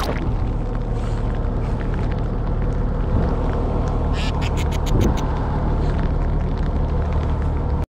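Fishing boat's engine running with a steady low hum. A quick run of sharp clicks comes about four seconds in.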